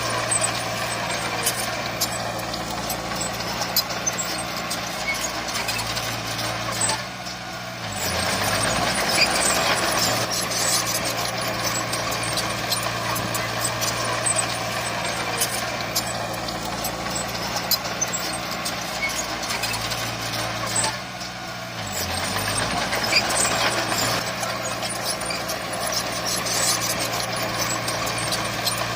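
Heavy diesel earthmoving machinery running steadily, with clatter and clanking over the engine note. Twice, about seven and about twenty-one seconds in, the engine briefly drops in pitch and loudness, then picks back up.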